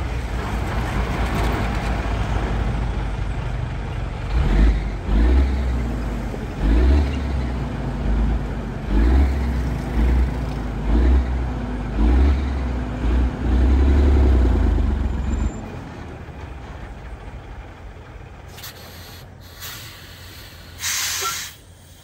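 Heavy logging truck's engine running, its low rumble swelling in repeated pulses roughly once a second, then dropping to a quieter run. A short burst of hiss comes near the end.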